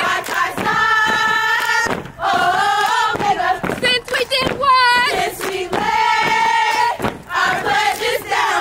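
A line of sorority women chanting in unison in a yard-show chant, holding long sung notes about a second each, with a few sharp thuds in between.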